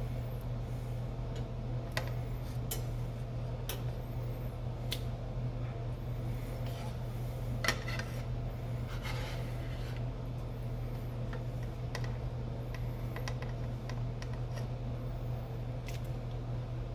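Scattered light clicks and clatter of kitchen utensils and dishes, about half a dozen over the stretch, over a steady low hum.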